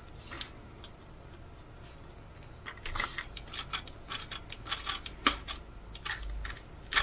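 Light, irregular clicks and ticks of a small screwdriver and landing-gear parts as the gear is fitted to an EPP foam RC model plane, starting about three seconds in and coming several times a second.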